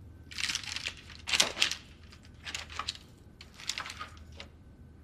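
Knife sawing through the crisp puff-pastry crust of a beef Wellington, in four short rasping strokes about a second apart.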